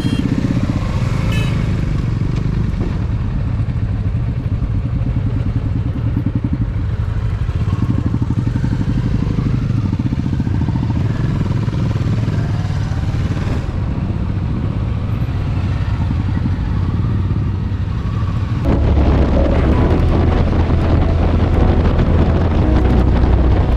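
Motorcycle engine running steadily while riding. About three-quarters of the way in, a louder rush of wind on the microphone joins in.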